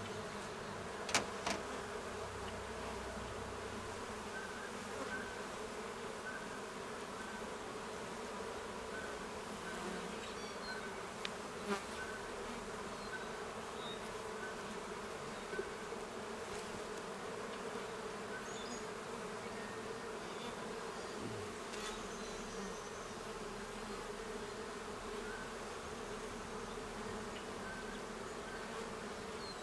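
Honey bees buzzing steadily around an open hive, a constant hum, with a few light knocks about a second in and near the middle.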